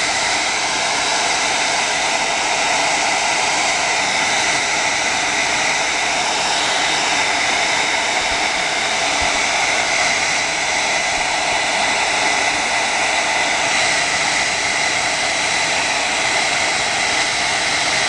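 Handheld hair dryer running steadily, a loud rush of air with a thin whine over it, blowing heat onto a phone's glass screen to soften the adhesive beneath it.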